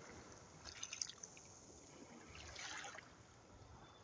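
Faint sea waves lapping on the shore: a small crackling splash and trickle about a second in, then a soft wash of water in the second half.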